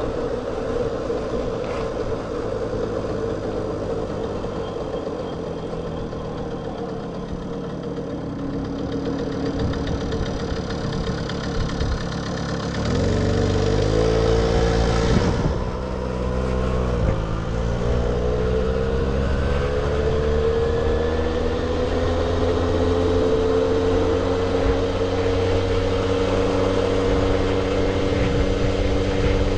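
1978 Puch Sport MK II moped's 50cc two-stroke engine running under way. It runs lower and quieter at first, revs up sharply about thirteen seconds in, drops back for a moment, then climbs steadily in pitch as the moped accelerates.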